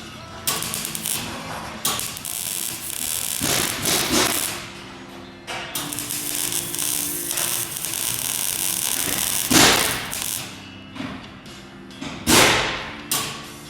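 Welding arc crackling in several short runs of one to four seconds, stopping and restarting abruptly.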